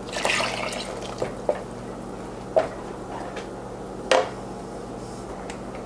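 Tamarind water poured from a cup into a pan of masala gravy, splashing for about the first second, then a low steady hiss with a couple of sharp clinks of utensil on the pan.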